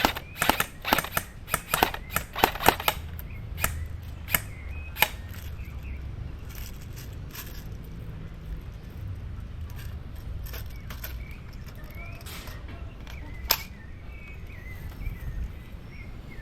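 Airsoft guns firing a quick string of about a dozen single shots over the first five seconds, then a few scattered shots, with one loud shot near the end.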